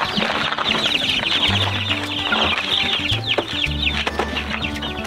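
A brood of month-old chicks peeping, with many short, high, falling cheeps overlapping continuously. Background music with a steady bass line plays underneath.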